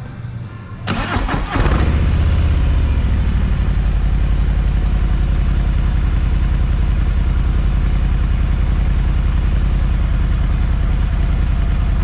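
Harley-Davidson Low Rider S V-twin starting through its stock exhaust: a brief crank and catch about a second in, then a steady, loud, lumpy idle.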